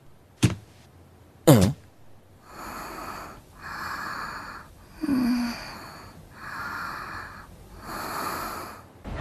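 A girl breathing slowly and audibly in her sleep, about five drawn-out breaths with a short snore-like note near the middle. Two short sharp sounds come in the first two seconds, before the breathing starts.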